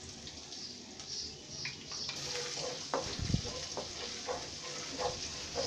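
Crushed ginger and garlic frying in oil in a stainless steel karahi, a steady sizzle, as the garlic starts to turn light golden. A wooden spoon scrapes and taps the pan from about halfway through, with one dull knock a little past halfway.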